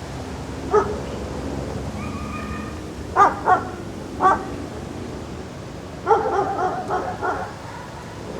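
A dog barking outdoors. There are single barks about a second in and at three and four seconds, then a quick run of barks about six seconds in, over steady outdoor background noise.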